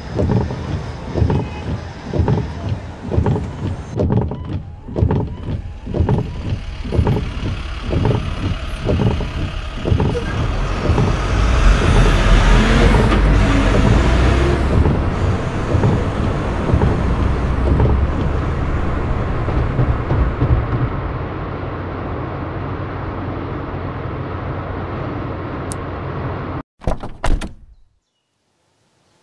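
Car road noise heard from inside a moving car, starting with low rhythmic thuds about one and a half times a second. The noise then swells into a loud, steady rumble, evens out, and cuts off abruptly near the end.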